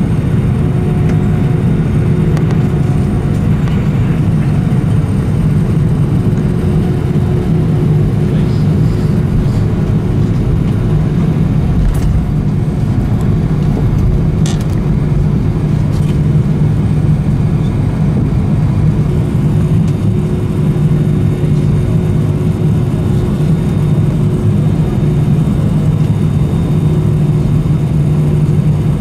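Steady engine and cabin rumble inside an Airbus A320 after landing, at a constant level, with a few light clicks around the middle.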